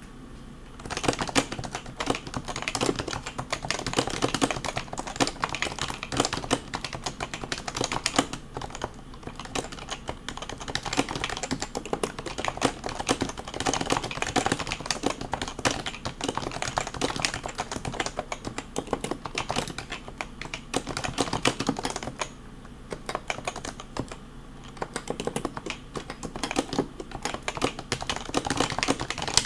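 Fast typing on a stock HHKB Professional 2 keyboard with Topre switches, a dense run of keystrokes. It starts about a second in and pauses briefly about three-quarters of the way through.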